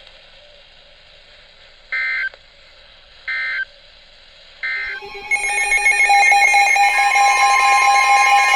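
Three short, equal bursts of EAS/SAME digital data tones about 1.3 seconds apart: the End-of-Message code that closes an emergency alert, over a low radio hiss. About five seconds in, louder steady music starts.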